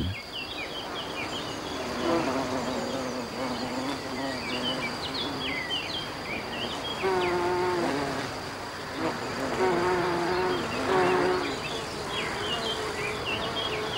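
Male Eucera long-horned bee buzzing its wings in uneven bursts, the pitch wavering, as it clings to an Ophrys orchid flower and tries to mate with it. Small high chirps sound faintly behind it.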